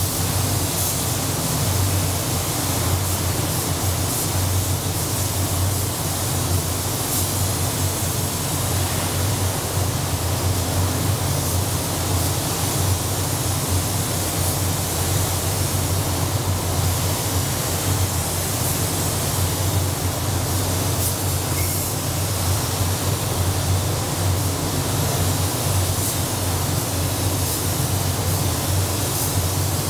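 Steady rushing noise of a paint spray booth's air flow with a low hum underneath, and the hiss of a compressed-air spray gun spraying paint onto a car body.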